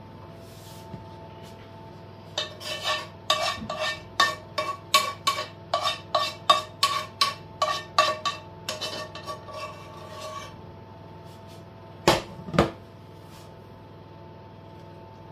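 A metal spoon scraping cooked onions out of a stone-coated non-stick frying pan in quick repeated strokes, about two a second, with the pan ringing faintly on each stroke. Then two loud knocks as the pan is set back down on the hob.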